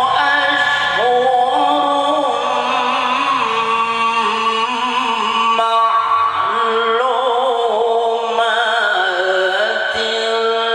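A male qari reciting the Quran in melodic tilawah style, holding long, ornamented notes with wavering turns. The voice breaks off briefly twice, about six and ten seconds in.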